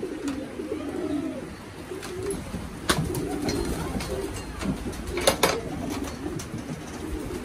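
Racing pigeons cooing in a loft, low wavering coos overlapping throughout. A few sharp clacks cut in, one about three seconds in and a quick pair a little past five seconds.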